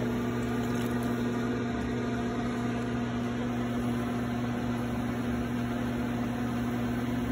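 Electric potter's wheel motor running at a steady speed, a constant hum.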